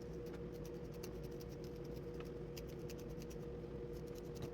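A dreadlock being tightened by hand: faint, quick, irregular little clicks and scratches of hair being worked, over a steady low hum.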